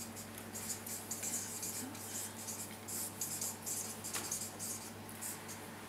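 Writing on paper: quick, scratchy marker and pen strokes, several a second, over a low steady hum.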